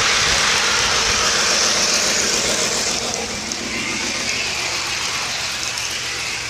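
Model airplane's motor and propeller whirring steadily, with air rushing past the camera riding on the plane. It eases a little about halfway through.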